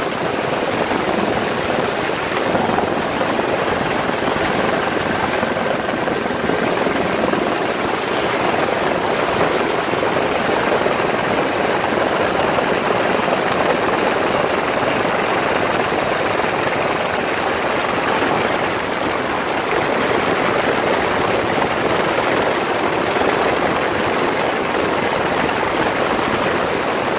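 Helicopter rotor and engine noise heard from on board: a loud, steady rush with a thin high whine above it.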